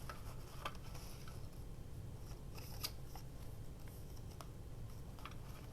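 Paper scraps being handled and sorted: faint scattered rustles and light crisp ticks.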